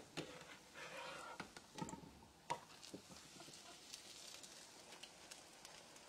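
Metal slotted spatula and fork clicking and scraping against a frying pan as a potato latke is flipped, over the faint sizzle of frying oil.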